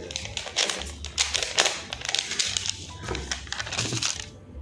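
Paper and packaging rustling and crinkling as a folded paper invoice and the contents of a cardboard delivery box are handled: a run of irregular scratchy rustles that dies away near the end.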